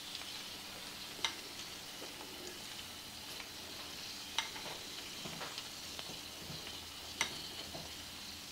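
Faint sizzle of a hot, freshly baked meatloaf in its foil-lined pan, with the soft wet dabbing of a basting brush spreading chili-sauce glaze over the top. A few light clicks, three of them standing out a few seconds apart.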